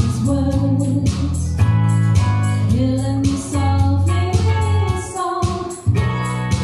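Live music: a singer's voice carrying a gliding melody over electronic accompaniment, with a steady bass line and a regular beat.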